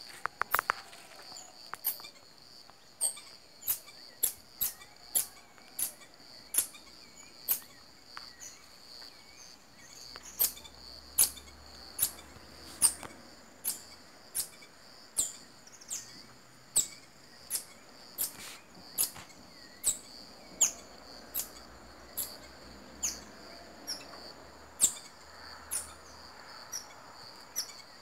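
Marmoset giving short, sharp, very high-pitched calls that each drop in pitch, about one a second, over a steady high insect trill.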